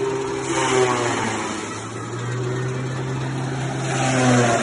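Forage chopper running with a steady motor hum, with two bursts of chopping as material is fed in, about half a second in and near the end; the machine's pitch sags under each load.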